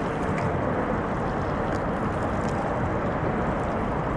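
Steady rushing of wind and water around a small inflatable boat, an even noise that holds at one level.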